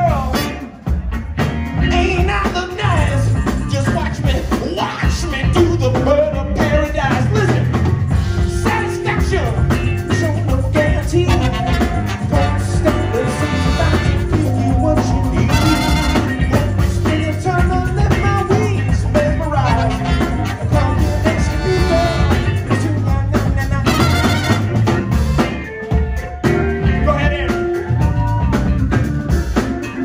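Live band playing an up-tempo song: a horn section of saxophones and trumpet over electric bass, drum kit and keyboard, with a steady beat.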